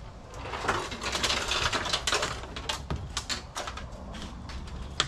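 Nissan Gloria rear body half-cut being heaved up onto its end by hand: its sheet metal clatters, knocks and scrapes in a string of sharp hits, loudest from about half a second in and easing off near the end.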